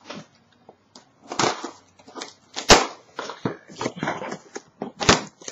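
A shipping package from an online order being torn open by hand: irregular rustling and tearing of packaging, with a sharp snap a little under three seconds in and another about five seconds in.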